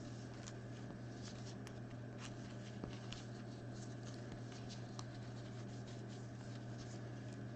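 Sports trading cards being handled and sorted by hand on a table: soft sliding, scratching and light clicks of card stock, scattered irregularly, over a steady low hum.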